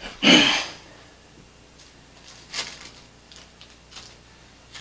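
Handling noise from small hard parts, a switch cover plate and its little screws: a short loud clatter near the start, a smaller one about halfway through, then a few light clicks.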